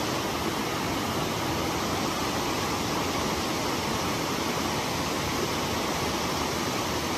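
Creek water rushing steadily over a small cascade and shallow rocky riffle.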